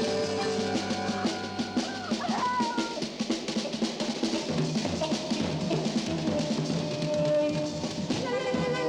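Music with a fast, busy drum-kit beat, snare and bass drum, under held instrumental notes, with a short sliding figure about two seconds in.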